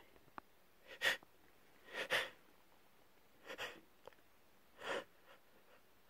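A person with a cold breathing heavily through the nose, four short breathy sniffs about a second apart.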